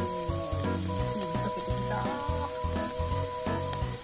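Samgyeopsal pork belly and chicken sizzling and crackling on an electric Korean barbecue grill plate, with soft background music.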